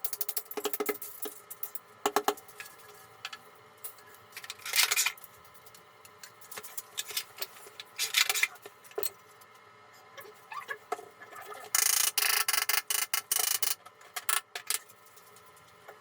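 Intermittent clicks, taps and short scrapes of hand work on bathroom tile and fittings, with a denser burst of rapid scraping for about two seconds near the end.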